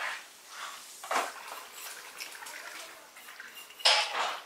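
Water splashing and dripping in short, irregular bursts, with one louder splash about four seconds in.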